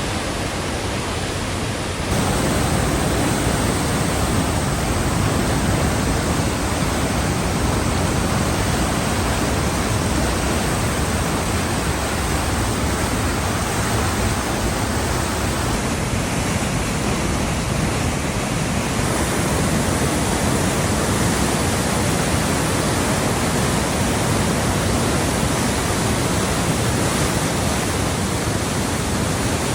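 Cascade River swollen with heavy rain, rushing over its waterfalls as a loud, steady wash of falling water. It steps up in level about two seconds in and shifts slightly a couple of times later.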